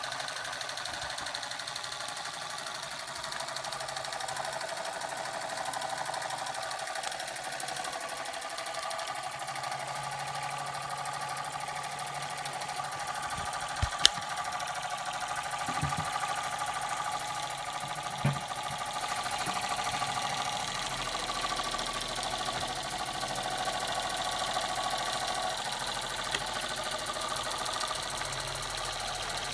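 Buckman twin-cylinder toy steam engine running steadily: a continuous mechanical chatter with steam hissing from the cylinders. A sharp knock about halfway through and two softer thumps a few seconds later stand out above it.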